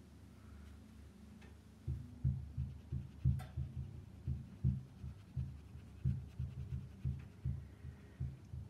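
Paintbrush dabbing watercolour onto paper, heard as irregular low thumps about two or three a second, starting about two seconds in, with one sharper click among them.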